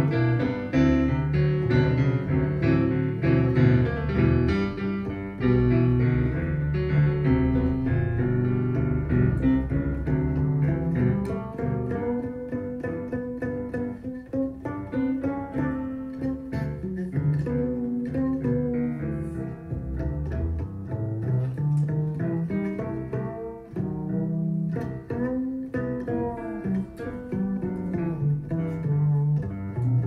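Instrumental passage of a boogie-woogie blues, with piano and guitar to the fore over a walking bass, played back through Martin Logan SL3 electrostatic loudspeakers and picked up by room microphones.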